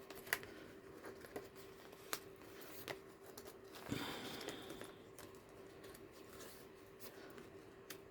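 Paper pages of a handmade junk journal being handled and turned: scattered soft clicks and taps, with a longer paper rustle about four seconds in. A faint steady hum sits underneath.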